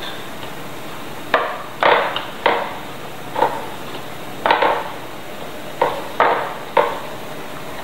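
Dull knocks of a metal six-cup tart tin against the table as puff pastry discs are pressed down into its cups with the fingers: about eight irregular knocks.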